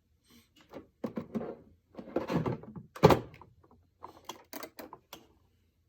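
Handling knocks, clicks and short scrapes, with one loud thump about three seconds in.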